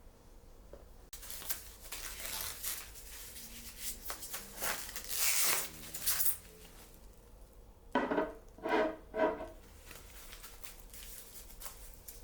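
Packaging rustling, crinkling and tearing as a wrapped item is opened by hand, then three short pitched squeaks close together.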